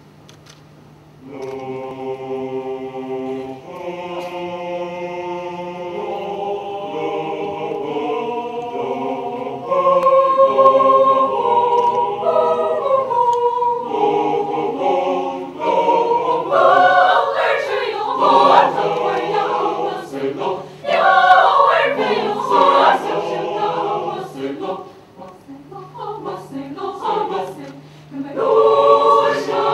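Mixed choir of women's and men's voices singing a cappella, coming in about a second in with held chords that grow louder about ten seconds in, with short breaks between phrases.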